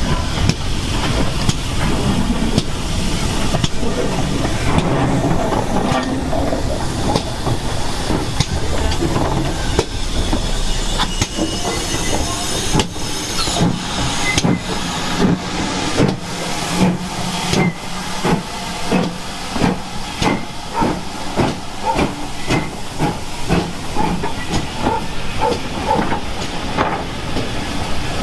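Steam locomotive hissing steam. About halfway through, its exhaust starts chuffing in an even, regular beat.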